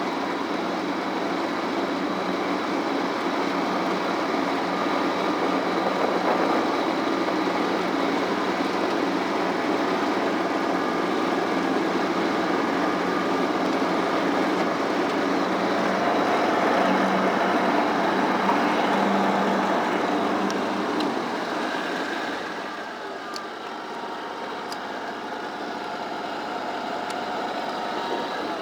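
John Deere GX345 lawn tractor's 20 hp liquid-cooled Kawasaki V-twin engine running steadily, getting quieter near the end.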